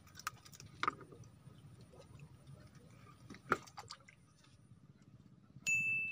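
A few scattered small clicks and taps from hands handling a fishing reel and line, then a single bright ding near the end that fades slowly.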